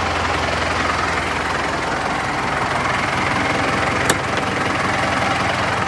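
Valtra N141 tractor's 4.9-litre SISU diesel engine idling steadily, with a single sharp click about four seconds in.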